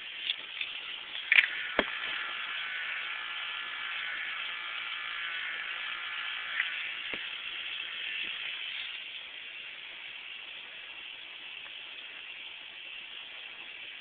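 Small geared electric motor of a USB-powered rotating warning light whirring steadily, with a couple of sharp clicks; it gets a little quieter about nine seconds in.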